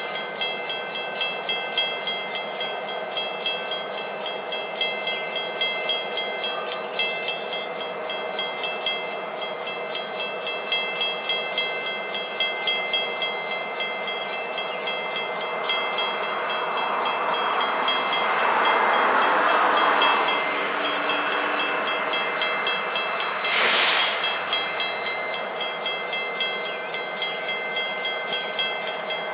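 Railroad grade-crossing bell ringing in steady repeated strikes beside a standing double-stack freight train. A rush of noise swells and fades around two-thirds of the way through, and a short sharp burst sounds near the end.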